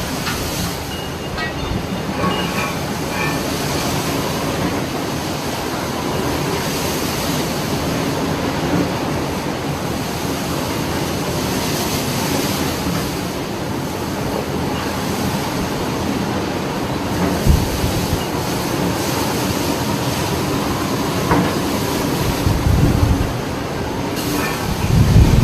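Steady rumbling roar of storm wind and heavy sea aboard a ship, with heavy low thumps about two-thirds through and again near the end.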